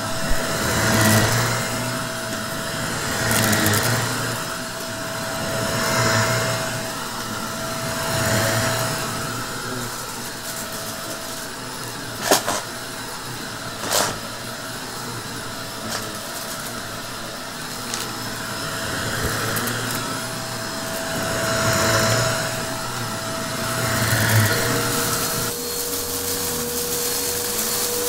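Shark upright vacuum cleaner running with a steady motor hum, swelling and fading about every two and a half seconds as it is pushed back and forth over a shag rug. There are two sharp clicks near the middle. About 25 seconds in, a different upright vacuum with a lower-pitched steady hum takes over.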